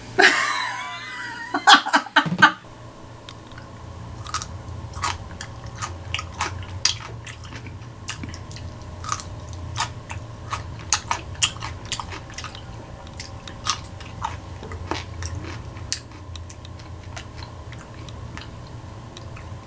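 A person biting into a crunchy pickle and chewing it with mouth close to the microphone. After a short burst of noise at the start come a few loud crunches about two seconds in, then quieter, irregular crunching.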